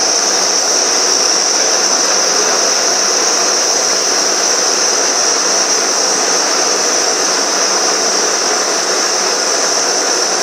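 Handheld gas-cartridge blowtorch burning with a steady high hiss as its flame heats a copper pipe joint for silver brazing.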